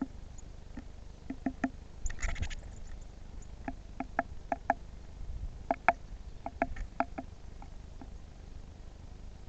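Eurasian nuthatch pecking at a feeder: irregular sharp taps, often in quick pairs and threes, with a short rustling flutter about two seconds in.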